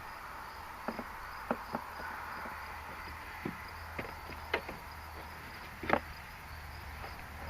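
Crickets chirping steadily in the background, with a scattered series of small sharp clicks and taps from hands and pliers working the fuse in an under-hood fuse box, the loudest about six seconds in.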